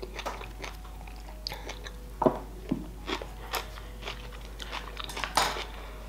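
Close-up mukbang chewing of a mouthful of poke with chuka seaweed salad: wet mouth sounds and irregular crunching bites, with two louder crunches about two and five seconds in.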